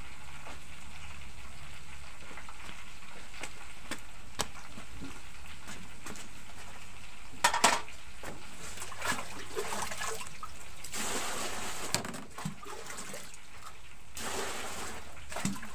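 Steady sizzle of frying in a wok over a wood-fired clay stove, with scattered clinks and knocks of pots and utensils; the loudest is a short cluster of clatters about halfway through.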